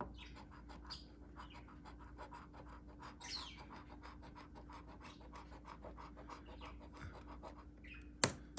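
Metal coin scratching the coating off a paper scratch-off lottery ticket, quick rasping strokes several a second. A sharp tap near the end.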